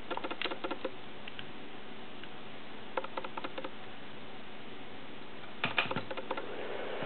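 Small plastic button clicks in three short clusters, from the stopwatch's buttons and the laptop's power button being pressed. Near the end a steady whir starts and grows as the laptop powers on and its fan and drive spin up.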